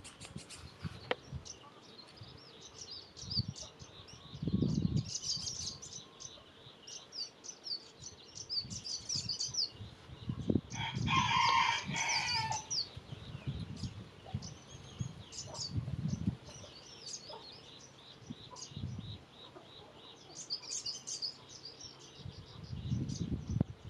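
Small birds chirping repeatedly, with a rooster crowing once for about two seconds near the middle. A few low thuds are scattered through.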